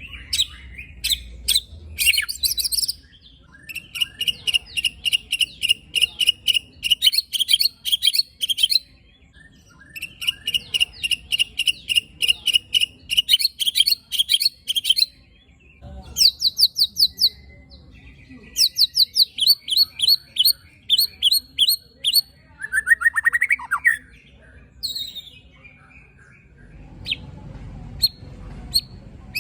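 White-rumped shama giving long runs of rapid, sharp repeated call notes, about four or five a second, broken by short pauses, with a lower sweeping note near the end.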